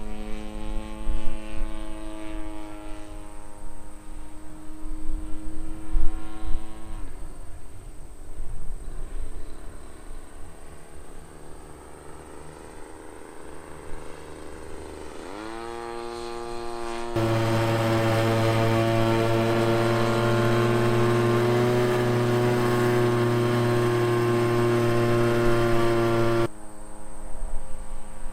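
Small 20cc two-stroke gas engine of an RC Piper Cub model airplane in flight, a steady propeller drone. It fades as the plane draws away, rises in pitch about halfway through, then runs much louder for several seconds before dropping back abruptly near the end.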